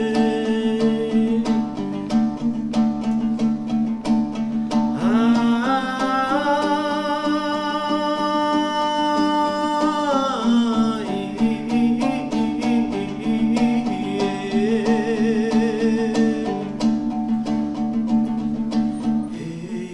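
Man singing a slow folk melody with wide vibrato, rising to one long held high note in the middle and then falling away, over plucked long-necked folk lutes (dombras) and a steady low drone.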